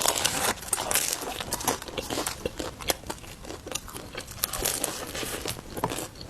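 Crinkling of a food wrapper and crackling of roujiamo flatbread as it is handled and torn, a dense run of small sharp crackles. The bread has been carried home and is no longer fully crisp.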